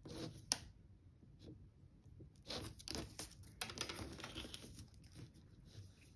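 Faint sounds of hands working soft air-dry clay with a thin wooden stick on a tabletop: a sharp click about half a second in, then a run of soft rustling and scuffing as the cut pieces are handled and pulled apart.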